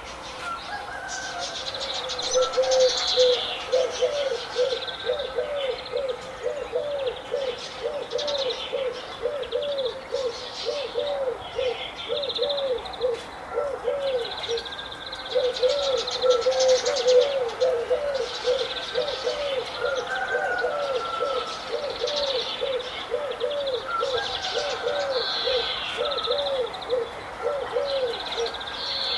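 Many birds calling together: a low, hooting note repeated rapidly, about two to three times a second, with a short break midway, over a steady mix of higher chirps and twitters.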